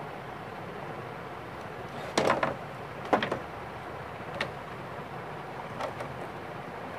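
A few sharp clatters and knocks, the loudest about two seconds in and again about three seconds in, with lighter taps later, over a steady hiss.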